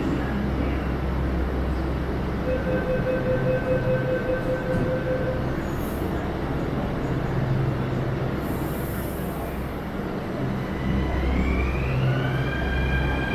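Delhi Metro train standing at the platform with a steady low hum. About two seconds in, a high pulsing warning tone sounds for about three seconds as the doors close. Near the end, the train's motors set up a whine that rises in pitch as it starts to pull away.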